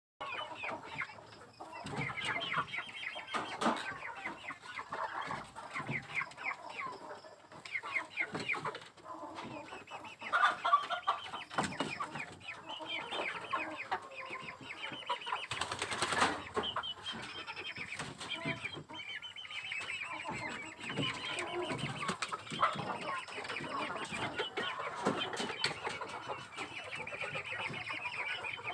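A flock of kampung (Indonesian native) chickens clucking and chattering continuously while perched on their roosts, many overlapping short calls. A brief loud noisy burst comes about sixteen seconds in.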